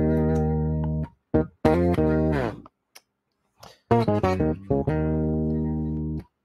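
Electric bass played through an octaver pedal: two short phrases of held and quickly picked low notes with about a second of silence between them, the first phrase ending on a note sliding down.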